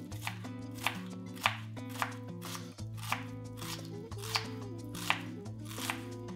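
Chef's knife dicing an onion on a wooden cutting board: about ten crisp chops, the blade striking the board roughly every half second.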